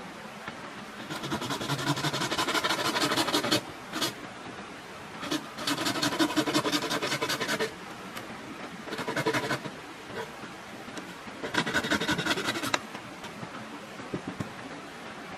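Four spells of rough scraping or rasping, each lasting one to three seconds, with short pauses between them.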